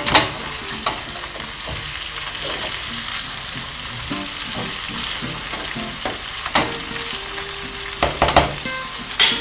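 Beef chunks sizzling in oil in a nonstick pan while being stirred with a slotted spatula, with a few sharp knocks of the spatula against the pan along the way.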